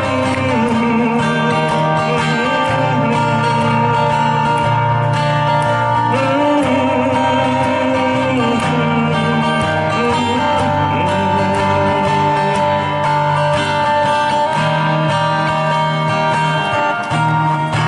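Two acoustic guitars playing a song together, with a steady run of plucked and strummed notes under a wavering melody.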